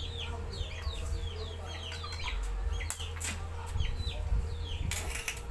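Birds peeping: many short, falling chirps, several a second, over a steady low hum, with a few brief bursts of noise near the middle and the end.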